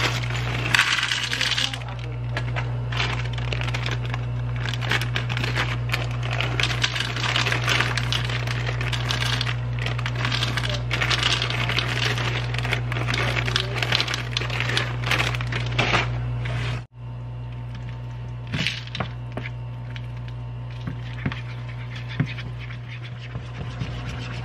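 Semi-sweet chocolate chips poured into a ceramic bowl: a dense rattle of many small hits lasting about seventeen seconds, which cuts off suddenly. After that, scattered light clicks of a spoon against the bowl as melted chocolate is stirred, over a steady low hum.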